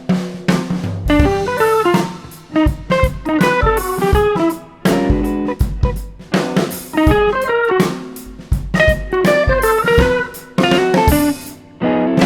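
Background music: electric guitar melody over bass and drum kit, in a bluesy style.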